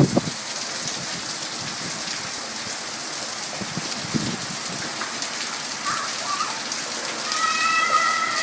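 Steady rain falling and hitting the ground, an even hiss of drops. A brief high-pitched tone sounds near the end.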